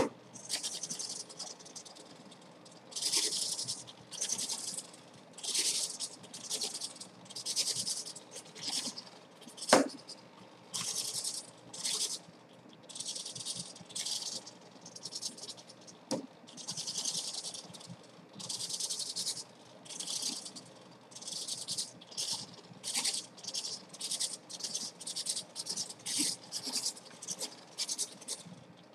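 Small hobby servos whirring in dozens of short bursts as they drive a flying wing's elevons back toward level each time the wing is tilted: an accelerometer-based auto-horizon correcting the wing's attitude. A sharp knock about ten seconds in is the loudest sound, with a smaller one a few seconds later.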